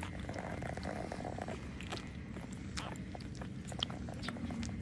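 Newborn puppies nursing from their mother: a steady low rumble of small animal noises with scattered small clicks, and a short mid-pitched sound during the first second or so.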